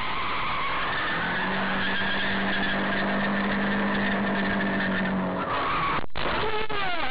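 Loud car driving noise heard through a dashcam: a steady rush of road, wind and engine sound. A sustained low tone comes in about a second in and stops after roughly four seconds. The sound cuts out abruptly for a moment near the end.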